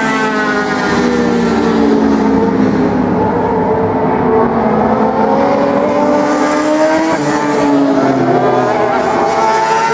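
Road-racing motorcycle engines at high revs as several bikes run through a corner, more than one heard at once. The engine notes drop in pitch for the first few seconds, climb again past the middle, and another drops near the end.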